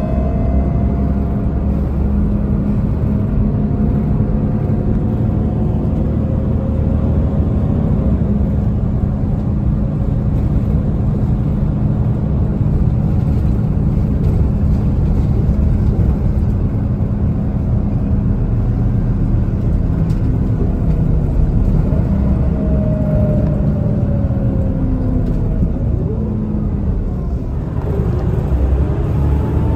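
City bus heard from inside the passenger cabin while driving: a steady engine and drivetrain drone with road noise, its whine gliding up and down in pitch as the bus changes speed. Near the end it eases off briefly, then builds again.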